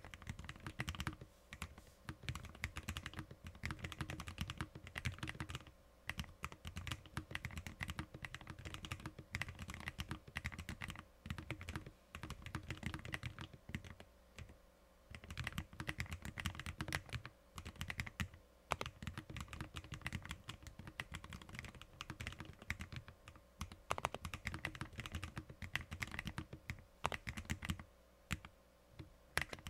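Fast continuous typing on a Lofree Flow low-profile mechanical keyboard with tactile Kailh POM switches, a dense run of key clicks broken by a few short pauses.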